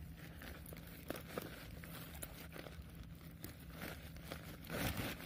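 Rustling and crinkling of a woven plastic sack and nylon net mesh as hands pull the net off a fish, with scattered small clicks, getting louder near the end.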